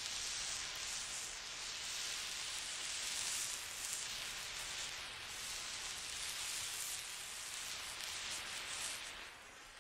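Steady static hiss with no distinct impacts or other events; it grows quieter near the end.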